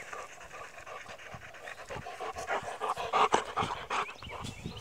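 Old golden retriever panting hard with its mouth open, in quick, even breaths that grow a little louder about three seconds in.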